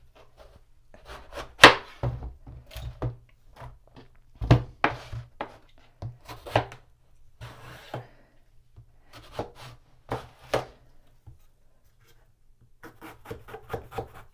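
Kitchen knife cutting through eggplant and knocking on the cutting board as it is diced into large cubes: irregular knocks, the loudest about one and a half seconds in, with a short pause near the end.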